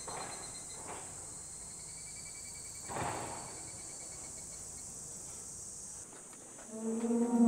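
Steady, high-pitched chorus of insects trilling. Near the end a sustained ringing tone with several overtones sets in.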